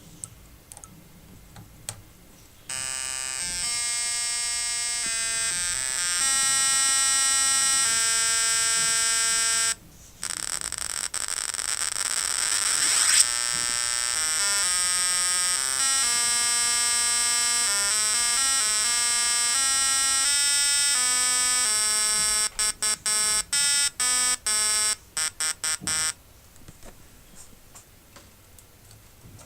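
Electronic sound effect from a PIC18F25K20 microcontroller on an Amicus development board. It begins a few seconds in as a run of buzzy beeping tones that step up and down in pitch, with a rising sweep midway. It ends in quick on-off beeps and then stops.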